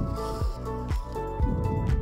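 Background music with a steady beat, about two beats a second, under held melodic notes.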